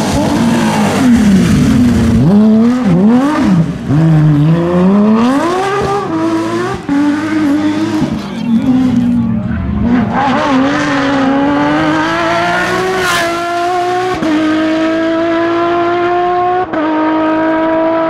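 Porsche 997 GT3 rally cars' flat-six engines at full throttle on a rally stage. In the first half the engine note swings up and down with throttle and gear changes through corners; in the second half a car accelerates hard, its pitch climbing steadily with two upshifts near the end.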